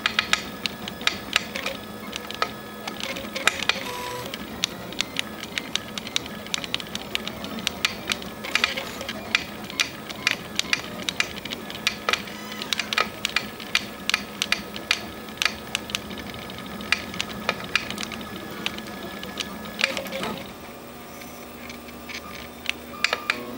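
RepRap Prusa 3D printer at work printing a part: its stepper motors run with a steady whirring hum of several fixed tones, broken by frequent sharp ticks. About twenty seconds in, the hum drops away for a few seconds while the ticks go on.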